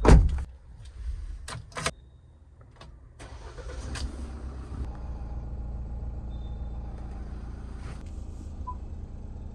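A loud thump, then a few sharp clicks, then the 2022 Mahindra Thar's engine starts about three seconds in and settles into a steady idle.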